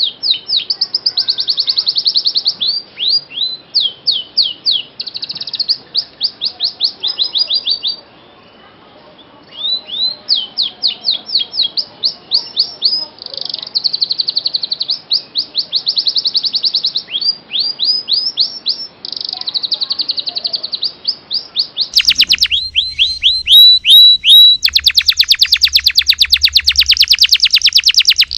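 Domestic canary singing: long runs of rapid trills and quick falling whistled notes, with a short break about eight seconds in. Near the end a second, louder canary song cuts in, with a very fast buzzing trill over a low hum.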